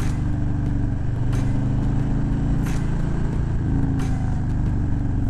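Harley-Davidson motorcycle engine running while riding, heard from the bike with wind rush, its pitch shifting with the throttle about a second in and again near four seconds.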